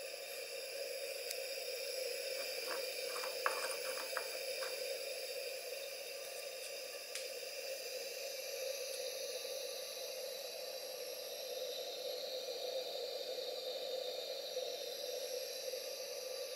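Electric kettle heating water: a steady hiss and rumble, with a few small clicks about three seconds in.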